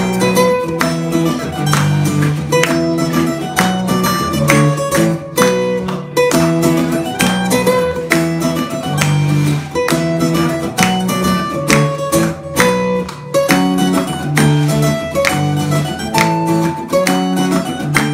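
Two acoustic guitars playing a song together, strummed in a steady rhythm.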